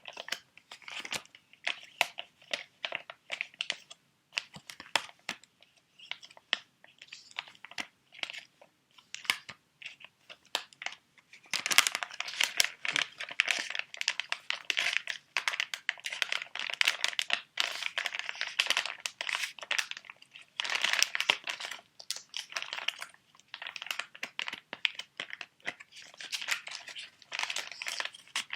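Crinkling and crackling of sheet mask packets handled close to the microphone, with a rapid run of small crackles. It is sparse and stop-start at first, then busier and louder from a little before halfway.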